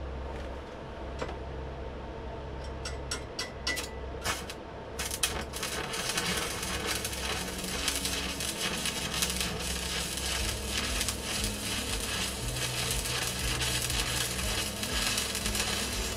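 Arc welding: a few sharp clicks as the arc is struck, then from about five seconds in a steady, dense crackle as a weld bead is run on steel.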